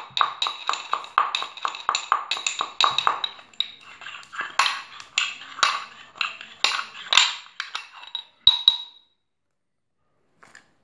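Pestle pounding a few black peppercorns in a mortar: quick ringing strikes, about two to three a second, ending with a sharp final strike about eight and a half seconds in.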